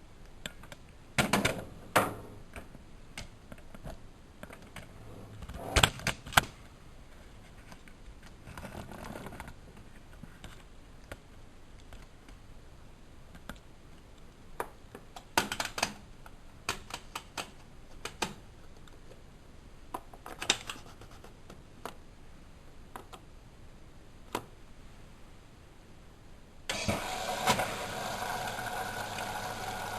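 Scattered clicks and knocks on a Bosch WFM3010 front-loading washing machine. About 27 s in, the machine starts up with a sudden, steady hum and rush that carries on.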